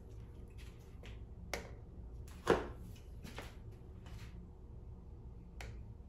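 A handful of light clicks and taps from hands handling wires and small parts inside an electric scooter's stem, the sharpest about halfway through.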